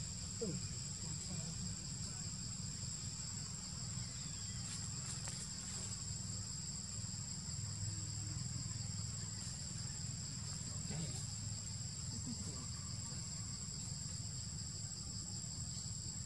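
Steady chorus of insects in the forest, a continuous high-pitched drone in two unbroken bands, over a low steady rumble of background noise.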